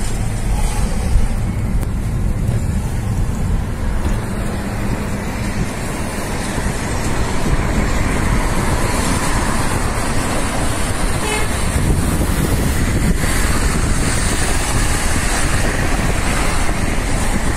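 Steady road and traffic noise from a moving car in city traffic: the rumble of engines and tyres, with other trucks and cars passing.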